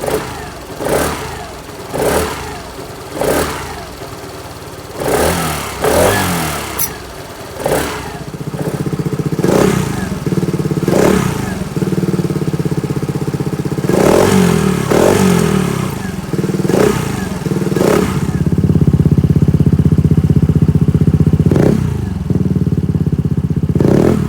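Kymco K-XCT 125cc scooter's single-cylinder four-stroke engine idling, with short throttle blips every second or two to let its exhaust be heard. The idle note is louder and fuller from about eight seconds in.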